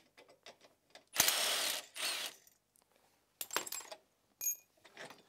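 Milwaukee Fuel cordless ratchet running for just under a second, then briefly again, as it spins off a sway bar link nut. A few sharp metal clicks and clinks of tools and parts follow.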